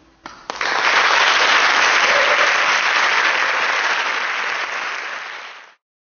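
Audience applauding: a couple of first claps, then full applause that begins to ease off and is cut off abruptly near the end.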